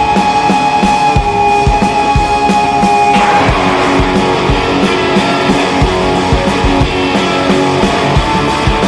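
Trailer music: a guitar-led rock track over a steady beat, its sustained notes shifting about three seconds in.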